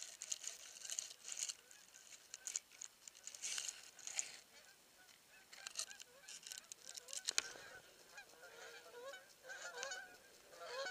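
A flock of geese honking in flight, the calls building from about halfway in. Earlier there is crackly rustling of grass close to the microphone.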